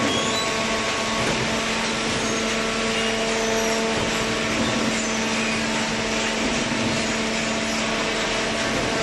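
Industrial cardboard shredding and baling machinery running: a steady, loud mechanical noise with a constant motor hum underneath.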